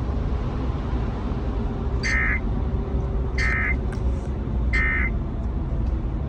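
Emergency Alert System end-of-message data bursts: three short bursts of warbling digital tones about a second and a half apart, signalling that the alert is over. A steady low rumble runs underneath.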